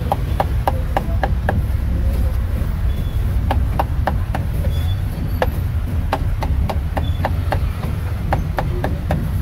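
A cleaver chopping roast meat on a chopping block: runs of quick, sharp knocks about three a second, with short pauses between runs. A steady low rumble runs underneath.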